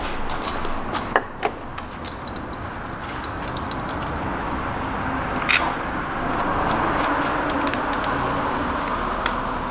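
Light metallic clinks and clicks of a hand tool and bolts being worked on the ignition coils of a 1.4 GDI engine, the sharpest clink about five and a half seconds in, over a steady background rushing noise.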